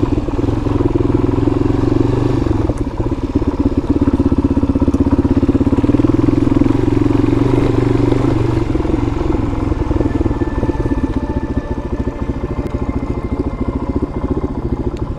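Suzuki DR-Z400 single-cylinder four-stroke dirt bike engine running under way at a steady throttle, heard from on the bike, easing off somewhat after about nine seconds.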